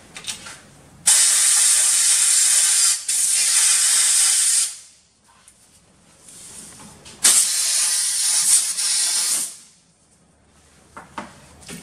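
Compressed-air blow gun blasting air through a freshly cut hydraulic hose to clear out the grinding dust and steel-wire dust. It makes two long hissing blasts: the first starts about a second in and lasts about three and a half seconds, and the second starts about seven seconds in and lasts about two seconds.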